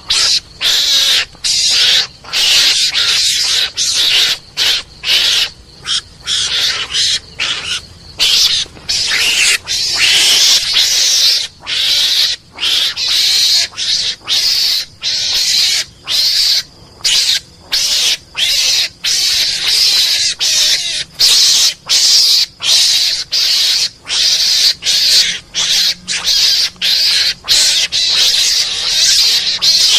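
Recorded Javan mongoose (garangan) calls used as a hunting lure: harsh, hissing chatter repeated in short bursts broken by brief gaps, about two a second.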